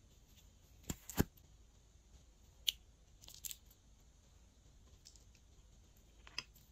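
Glossy slime being worked by hand, giving a few sharp clicks and pops: a close pair about a second in, a single loud one, a small crackly cluster, and another pair near the end.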